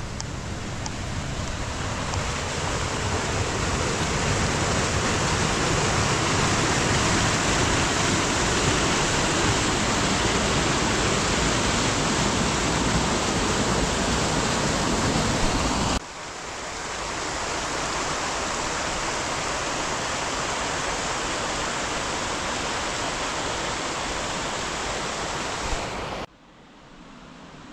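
Mountain stream rushing over a small weir: a steady roar of water that swells over the first few seconds, steps down abruptly to a slightly quieter rush a little past halfway, and drops away sharply near the end.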